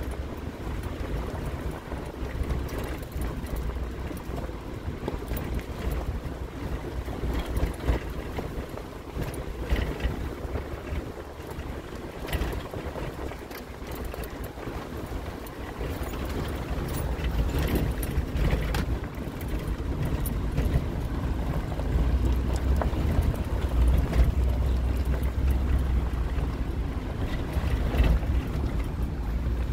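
Vehicle driving slowly over a rough, rocky dirt track: a steady low rumble with scattered knocks and rattles, growing louder about halfway through.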